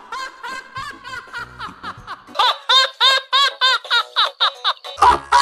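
Keloğlan's cartoon laugh played through voice-changer effects: a quick run of short 'ha' pulses, each rising and falling in pitch, at a high, squeaky pitch. About two seconds in the laugh gets louder and higher, and near the end another version with a deep bass underneath begins.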